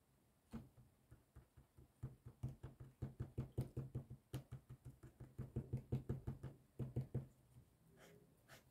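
Felt-tip marker dabbing dots onto paper laid on a hard table: one tap, then a quick run of short taps, several a second, with a few more near the end.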